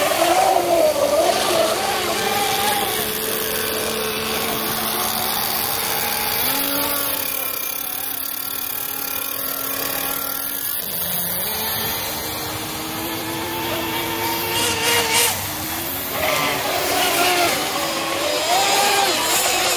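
Motor of a radio-controlled offshore racing boat running at speed on the water, its pitch rising and falling over several seconds as the throttle changes and the boat passes.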